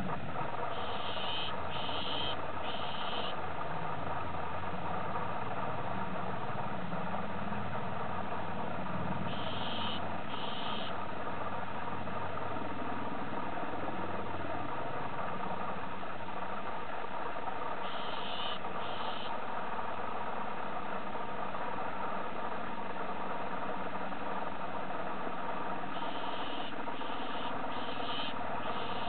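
A steady mechanical drone like an idling engine, with a bird's short high calls over it in groups of two to four, four times.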